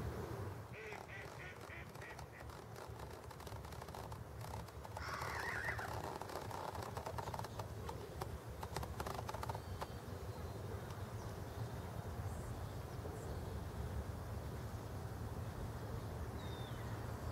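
Birds calling over the water: a quick run of about six short, evenly spaced calls, then a louder call about five seconds in, over a steady low rumble.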